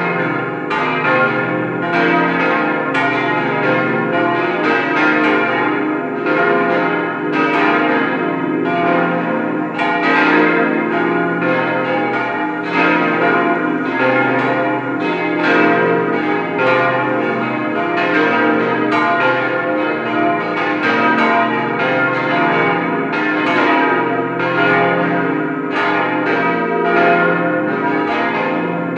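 Peal of swinging church bells, a set of five cast-steel bells tuned B-flat, C, E-flat, F and A-flat, ringing together; their strikes overlap irregularly, several a second, over a steady wash of ringing tones.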